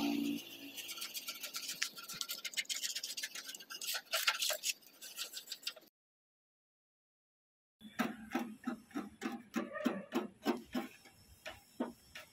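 Repeated scratchy hand strokes as old paint is rubbed down on a tractor's and trailer's steel bodywork before repainting. There is a short dead silence about halfway through, after which the strokes resume at roughly two or three a second.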